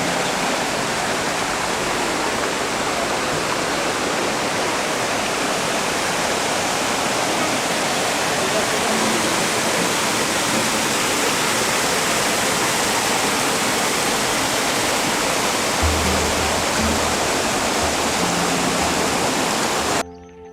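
Waterfall's steady roar of falling water, cutting off abruptly near the end.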